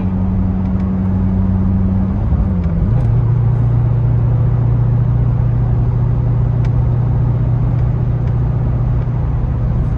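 LS3 V8 of a Corvette Grand Sport with a Hooker Blackheart X-pipe cat-back exhaust, heard from inside the cabin while cruising at low revs as a steady low exhaust hum. About two to three seconds in the engine note rises in pitch and grows a little louder, then holds steady.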